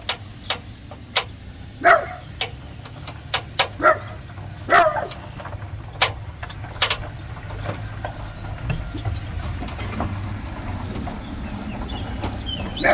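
Sharp clicks and knocks as a porch light fixture is handled and fastened onto its mounting studs with nuts, with a dog giving three short barks among them. In the second half a vehicle passes as a steady low rumble.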